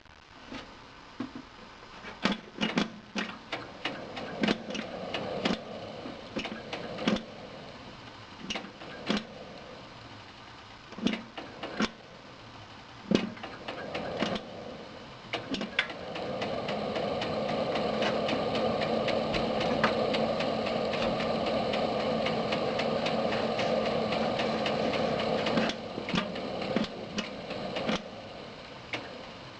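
Desktop PC system unit knocking as it struggles to start: irregular clicks and knocks, and about halfway through a steady whir sets in for some ten seconds, then cuts off suddenly and the knocking resumes.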